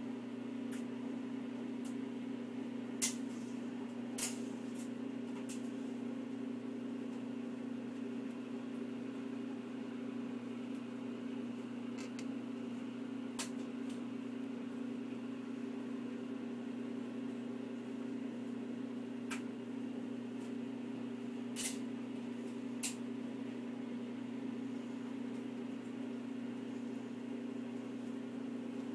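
A steady, low machine hum, with several sharp clicks scattered through it.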